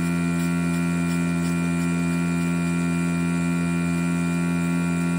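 Desoldering gun's vacuum pump running with a steady hum, sucking molten solder off a circuit-board joint.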